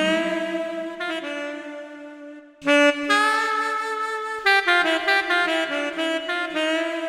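Yamaha PSR-SX900 keyboard playing a melody on its sampled saxophone voice, with long held notes. One phrase fades out and a new one starts with a sharp attack about two and a half seconds in.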